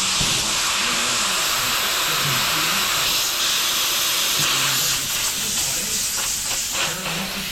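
Steady hiss with faint talk underneath.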